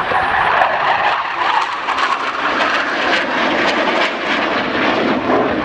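Blue Angels F/A-18 Hornet jets passing by, a loud crackling engine roar that drops in pitch as they go past.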